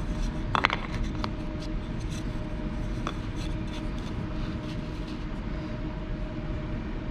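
A steady low machine hum, with a few light clicks and taps about a second in and again around three seconds.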